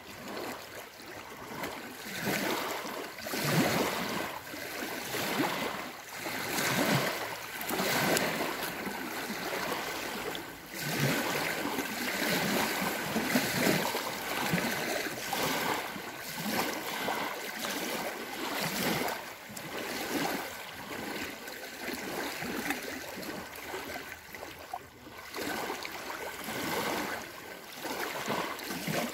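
Small waves lapping and washing onto a sandy lake shore, swelling and falling back in uneven surges a second or two apart.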